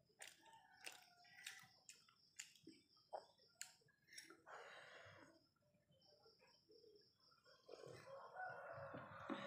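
Faint eating and drinking sounds: soft clicks while chewing bread in the first few seconds, then sips of coffee from a mug, the longest near the end.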